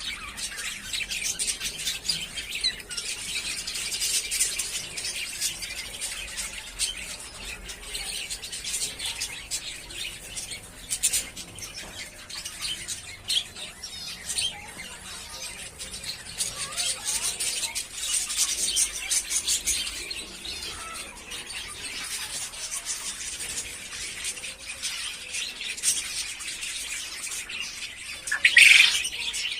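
Cockatiels and lovebirds chirping and chattering without a break, many short calls overlapping, with one louder call near the end.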